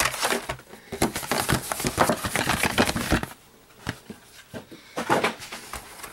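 Carded Hot Wheels blister packs, plastic bubbles on cardboard backers, rustling and clicking against each other as they are handled and flipped through, with a brief lull a little past the middle.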